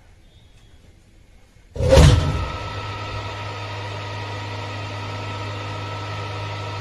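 Three-phase induction motor switched on with a sudden loud start about two seconds in, then running with a steady electrical hum.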